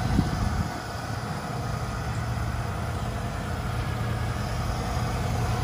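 1994 Ford F-150's 5.0-liter V8 idling steadily.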